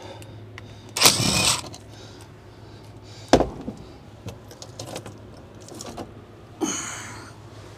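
Sheet-metal access panel of an air handler being handled and pulled off. There is a scrape about a second in, a sharp click, a few light ticks, then the metal panel scraping and rattling free near the end, over a low steady hum.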